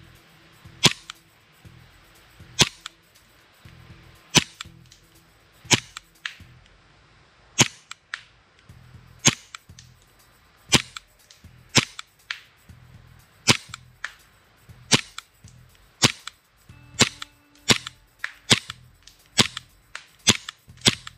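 Novritsch SSP18 gas blowback airsoft pistol firing single shots, each a sharp crack of the shot and cycling slide. They come about a second and a half apart at first, then quicken to about two a second over the last few seconds.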